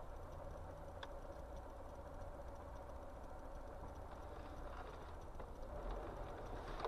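Faint, steady low rumble of a car's engine and tyres heard from inside the cabin, with one faint click about a second in.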